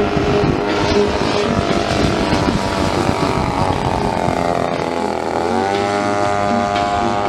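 Engine of a radio-controlled model Spitfire in flight. Its pitch sinks, then rises sharply about five and a half seconds in and holds steady, as the plane passes or the throttle opens.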